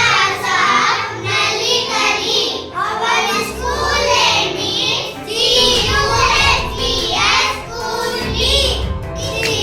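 A high child's voice singing a song over backing music with a low, pulsing beat.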